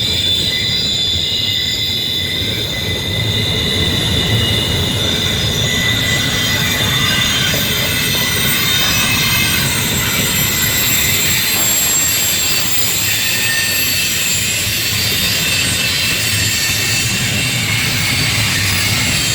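CSX intermodal freight train's cars rolling past steadily, with a sustained high-pitched squeal from the wheels on the rails.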